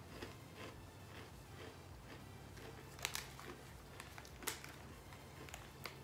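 Faint crinkling of plastic snack packaging being handled, with a few sharper crackles about halfway through and near the end.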